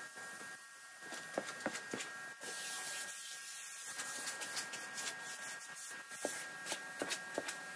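Pressure-washer jet hissing as it sprays onto a soaked carpet, strongest from about two and a half to six seconds in, with scattered sharp clicks and a faint steady whine underneath.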